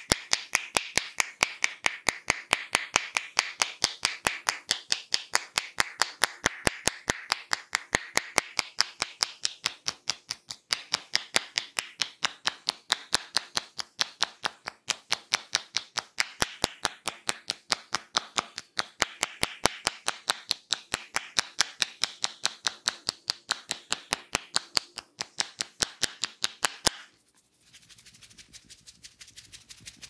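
Hands striking the scalp in rapid head-massage tapping: a fast, even stream of sharp snapping clicks. It cuts off suddenly about three seconds before the end, leaving soft rubbing of fingers in the hair.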